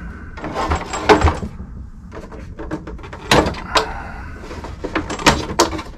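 Sharp knocks and clatter of an RC car's plastic body shell being handled and set back onto the chassis: a few scattered knocks, about a second in, around three and a half seconds in, and again after five seconds.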